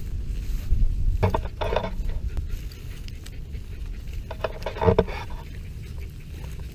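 Low wind and movement rumble on an action camera's microphone as it moves through tall grass. Two short pitched calls stand out, one about a second in and one near five seconds.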